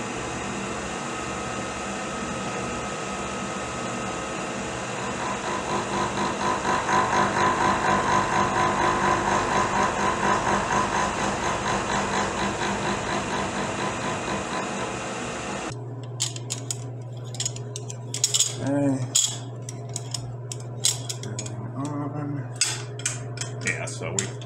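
Milling machine running an end mill through the steel breech end of a rifle barrel, cutting the extractor slot in repeated passes toward depth; the cut swells into a quick, even pulsing through the middle. About two-thirds of the way in the machine sound stops suddenly, and scattered metal clicks and knocks follow.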